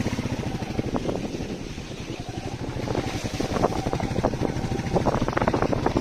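Royal Enfield Meteor 350's single-cylinder engine running at low speed, a steady fast train of exhaust pulses that grows a little stronger near the end as the bike picks up.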